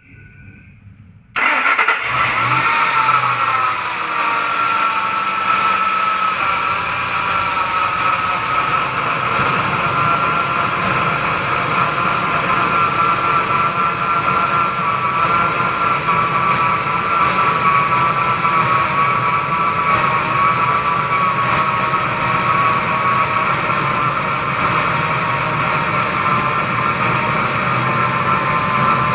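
Ford Expedition engine starting about a second in, then running steadily, its speed settling down slightly over the first few seconds.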